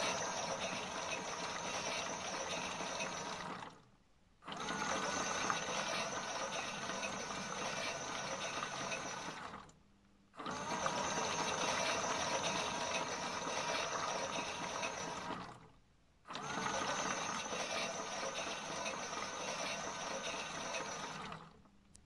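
Miele toy washing machine's small electric motor whirring as it turns the drum, with water sloshing inside. It runs in four stretches of about five seconds with brief pauses between, then stops shortly before the end.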